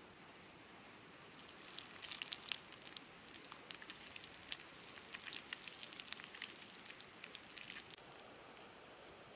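Frog cooking on a hot stone slab: a quick, irregular run of small sizzling pops and crackles as the juices bubble and spatter on the stone. The pops start about a second and a half in and thin out near the end.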